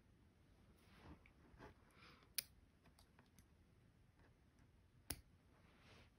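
Faint rustle of cotton embroidery floss being drawn through Aida cloth during cross-stitching, with two sharp little clicks, about two and a half and five seconds in.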